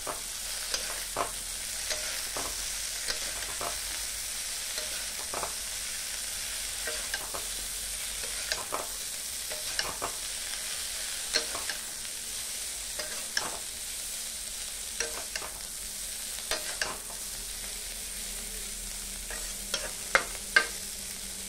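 Boiled drumstick (moringa) pods and onion frying in an iron kadhai with a steady sizzle. A metal spatula scrapes and taps against the pan about once a second, with a few louder knocks near the end.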